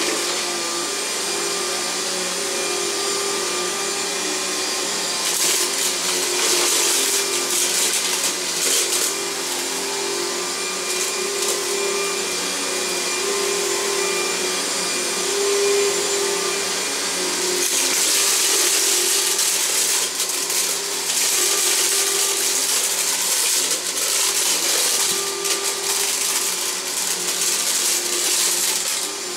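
Riccar 100 10-amp upright bagged vacuum cleaner running steadily while being pushed back and forth over carpet, with a steady motor hum under a high rush of air that swells and fades from stroke to stroke.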